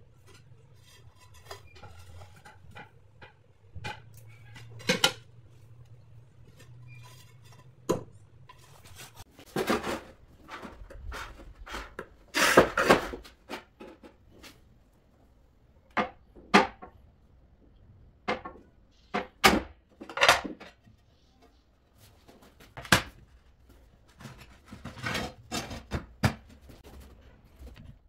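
Ceramic floor tiles and a manual rail tile cutter being worked: irregular sharp clinks and knocks as tiles are handled, set down and cut, with a louder cluster of them about halfway through.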